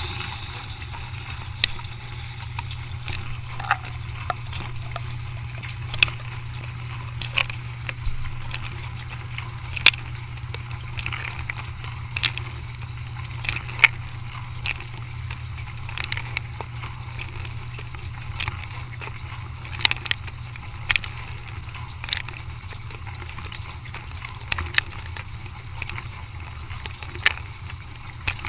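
Dishwasher running its wash cycle: the circulation pump hums steadily while water sprays against the dishes and racks, with irregular clicks and taps throughout.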